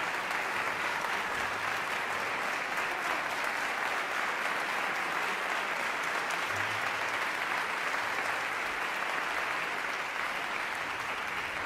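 Concert audience applauding steadily, a dense clapping that eases slightly near the end.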